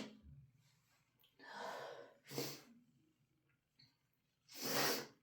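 A person breathing hard and sniffling through the nose after a big sneeze brought on by Chhinkni sneezing powder. There is a longer breath about a second and a half in, a short one right after, and another near the end.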